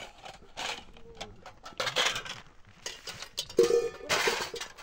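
Metal dishes and cups clattering and clinking as they are handled in a basket, with one louder ringing clank a little past halfway.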